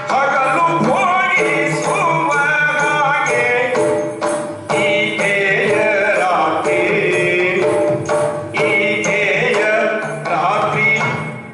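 Yakshagana music: a singer's melodic, gliding vocal line over steady drum strokes and a sustained drone.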